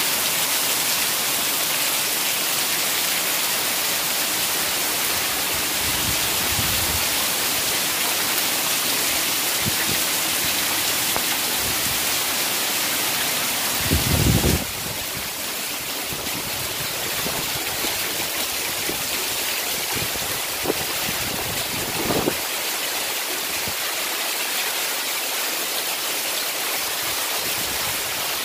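Heavy rain pouring down in a steady hiss. A brief low thump comes about halfway through, and the rain is a little quieter after it.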